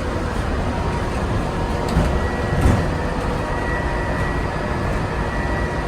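Monorail running, heard from inside the car: a steady low rumble and rushing noise with a thin, steady high whine, and a couple of small bumps about two and a half seconds in.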